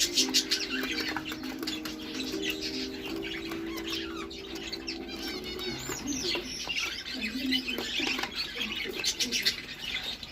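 Young budgerigars chirping and chattering in quick, overlapping calls. Low steady tones run underneath for about the first half, then stop.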